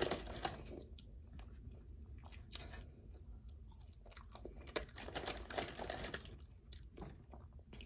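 A person chewing and crunching fried food (wings and fries) close to the microphone, with a run of crunchy bites about halfway through.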